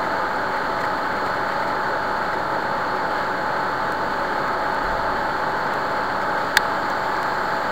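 Steady background hum and hiss of the recording, with a faint steady tone and a single sharp click about six and a half seconds in.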